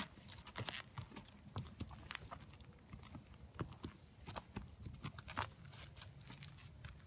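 Nez Perce horse's hooves stepping as it walks on grass and gravel, an uneven run of dull footfalls and sharper clicks, several a second.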